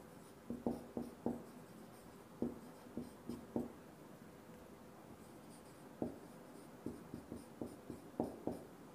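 Marker pen writing on a whiteboard: short, faintly squeaky strokes in quick clusters, with a pause of about two seconds in the middle.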